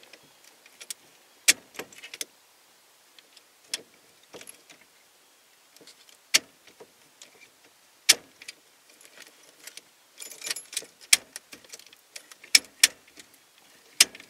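Sharp, scattered clicks and clacks of plastic and metal as the ignition lock housing on a 1991 Ford F-150 steering column is handled and worked into place, with a key ring jangling briefly about ten seconds in. The lock cylinder is stiff and hard to turn, and the owner thinks it is worn out.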